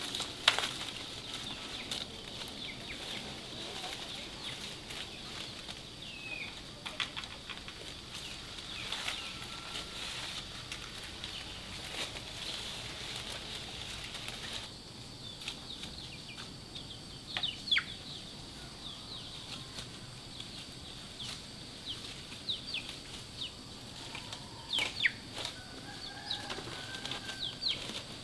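Outdoor rural bird sounds: many short, falling chirps over a steady high hum and a soft hiss, with a few sharp clicks.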